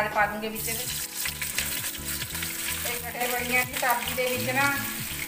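Sliced onions dropped by the spoonful into hot oil in a kadai, which bursts into a loud sizzle about half a second in and keeps frying, with a steel spoon scraping the colander.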